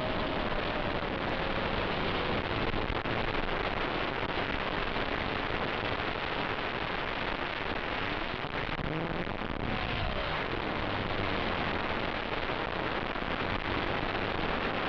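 Steady rushing hiss, with the faint whine of a small FPV drone's brushless motors gliding up and down in pitch beneath it.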